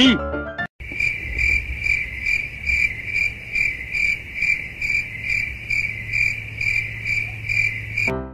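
Crickets chirping in a steady, even run of high chirps, about two and a half a second. The chirping cuts in abruptly just under a second in and stops abruptly near the end: the stock cricket sound effect edited in for comic 'awkward silence'.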